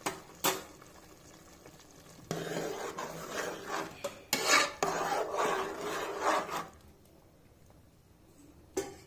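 A metal ladle stirring soaked basmati rice and water in a pressure-cooker pot, scraping and knocking against the metal for about four seconds starting about two seconds in. There is a single sharp clink about half a second in and another near the end.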